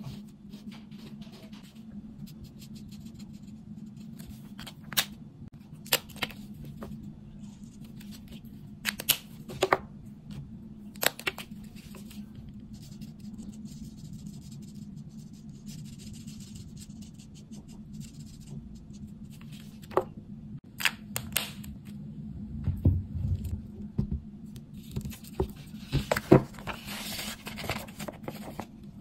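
Felt-tip marker scratching and scraping on paper as a drawing is coloured in, with scattered sharp clicks, over a steady low hum. In the last few seconds the paper sheet rustles and crinkles as it is handled.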